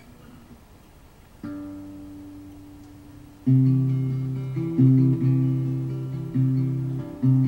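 Acoustic guitar being strummed: nearly quiet at first, a soft chord about a second and a half in, then from about halfway a run of louder strummed chords that ring on between strokes.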